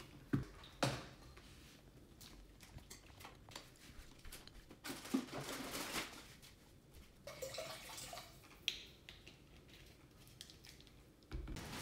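Quiet close-up handling and eating sounds of a choux pastry: a few light clicks and taps early on, then a stretch of soft crackly rustling and chewing around the middle.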